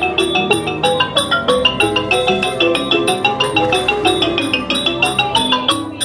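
Thai ranat, a wooden-bar xylophone, played in fast, even runs of struck notes. Steady percussion beats run underneath, about four a second.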